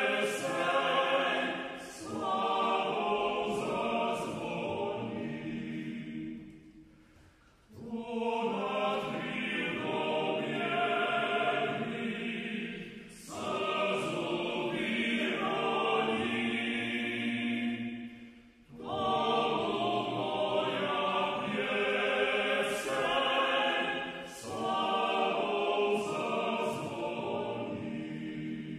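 A choir singing in long phrases, with short breaks between them.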